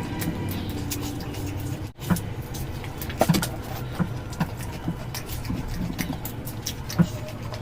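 Close-miked eating sounds: irregular short clicks and smacks of chewing, over a steady low hum, with a brief break about two seconds in.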